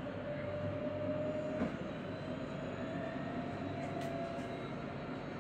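Electric street tram running on its track, heard from inside the driver's cab: a steady rumble with a motor whine that rises slightly in pitch a little before the middle, and a couple of light clicks.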